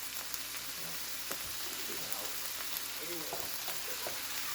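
Marinated carne adobada frying in a hot pan: a steady sizzle with small crackles and pops.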